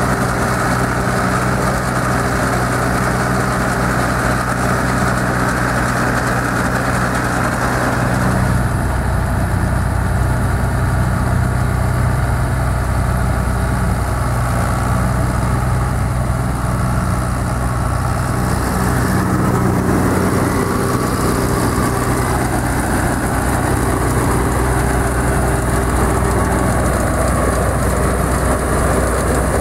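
John Deere 330 combine harvester running steadily, its engine and machinery giving a constant hum. The mix changes abruptly about eight seconds in and again around nineteen seconds.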